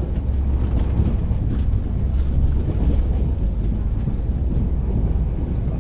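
Steady low rumble of a passenger train's coach running along the track, heard from inside the carriage, with a few light irregular clicks and rattles.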